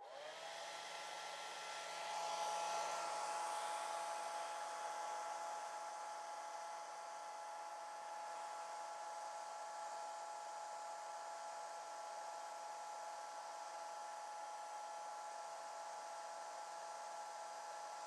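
Handheld hair dryer switched on, its motor whine rising briefly in pitch as it spins up, then running steadily over the rush of air, a little louder for a few seconds after it starts. It is blowing on a wet watercolor painting to dry the paint.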